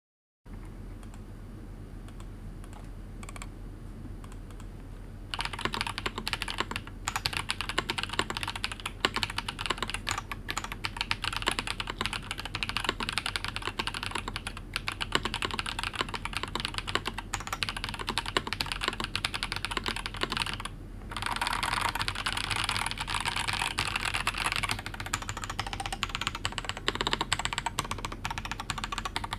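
Typing on a mechanical keyboard: Zaku linear switches (PC top, nylon bottom, 63.5 g two-stage springs) in a silicone-mounted Ramaworks Kara, under Cherry-profile doubleshot PBT keycaps. Fast, steady keystrokes start about five seconds in, with a short break a little after two-thirds of the way through, over a low steady hum.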